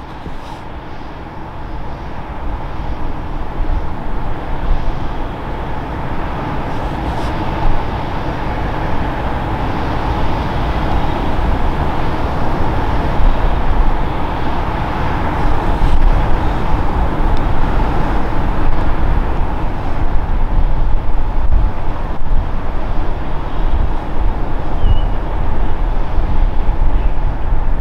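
Airbus A321neo's two CFM LEAP-1A turbofans on final approach: a steady jet whine and rush that grows steadily louder as the aircraft comes closer.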